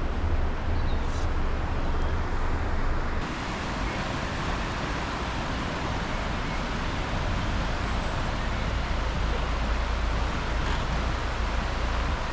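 Steady outdoor rushing noise with a low rumble of wind buffeting the microphone; the hiss brightens suddenly about three seconds in.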